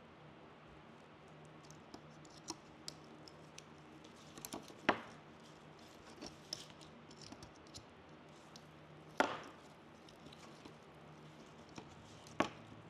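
Fresh evergreen sprigs rustling and crackling as they are worked into a wreath by hand, with scattered light ticks. Three sharp snaps stand out, about five and nine seconds in and near the end.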